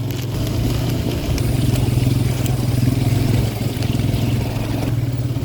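Motorcycle engine running steadily under way, a low even hum with a fast pulse.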